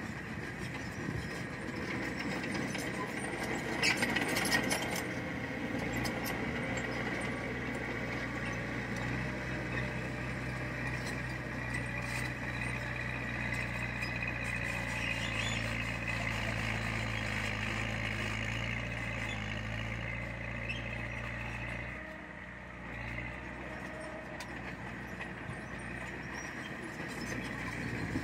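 Heavy diesel earthmoving machinery running steadily, with a few metallic clanks about four seconds in.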